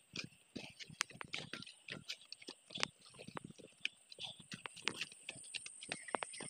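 Irregular footsteps and scuffs of people in rubber boots walking down a steep dirt-and-rock forest path, with short crunches and knocks of uneven strength and leaves brushing against them.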